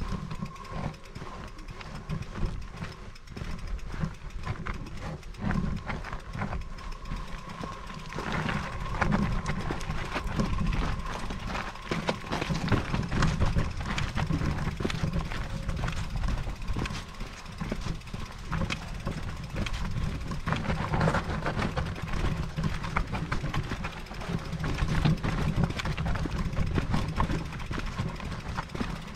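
Electric mountain bike being ridden over a rough trail: a steady low rumble with frequent rattles and clicks from the bike. A thin steady whine runs through the first eight seconds or so, then stops.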